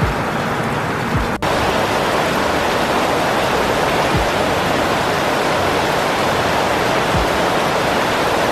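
Heavy rain pouring down on trees and vegetation, a steady dense hiss with a brief break about a second and a half in, and a few short low thumps.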